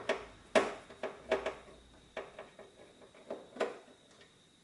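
Irregular sharp clicks and taps, about seven in all, of a Phillips screwdriver working a screw out of the plastic tailgate trim panel.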